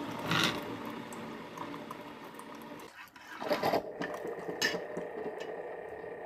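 Keurig single-serve coffee maker's pump running steadily as it dispenses into a ceramic mug, with liquid trickling in. A few brief clinks of a metal spoon against the mug come through the hum.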